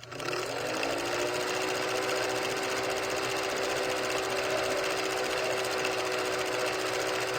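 A motor starts up, its whine rising briefly and then running at a steady pitch over a steady hiss.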